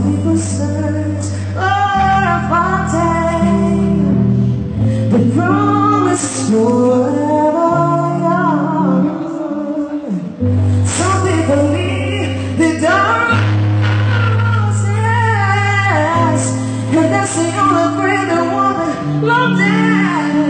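A woman singing a slow ballad live with band accompaniment, her voice moving in long ornamented runs over held bass notes that change every couple of seconds.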